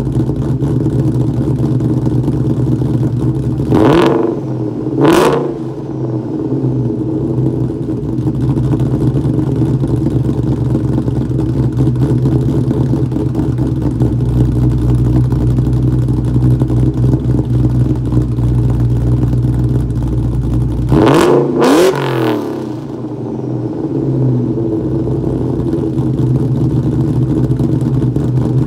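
Cammed 2004 Ford Mustang SVT Cobra's supercharged 4.6-litre V8, with longtube headers, an off-road H-pipe and a Borla Stinger catback, idling warm through its exhaust. It is blipped twice quickly a few seconds in and twice more later, each rev dropping straight back to idle.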